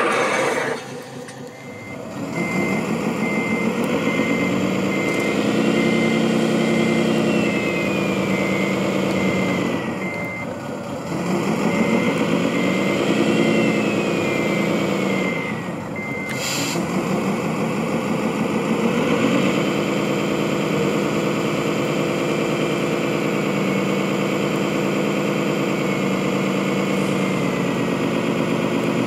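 Radio-controlled MAN tractor unit's sound module playing a simulated truck diesel: it revs up and falls back twice, then settles into a steady run. A steady reversing beeper sounds from about two seconds in until about halfway. The truck is stuck in snow.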